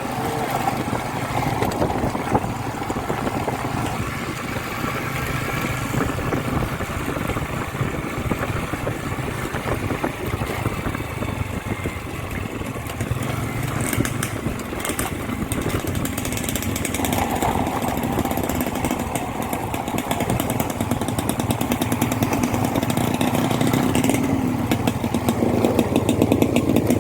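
Small motorcycle engine running steadily while being ridden.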